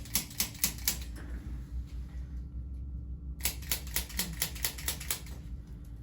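Quick runs of sharp clicks, about six a second, from a handheld chiropractic adjusting instrument tapping along the back. A short run at the start is followed by a pause of about two seconds, then a longer run of about ten clicks.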